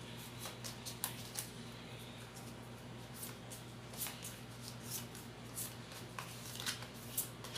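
A small handful of Pokémon trading cards being shuffled by hand: irregular soft flicks and clicks as the cards slide and tap against each other.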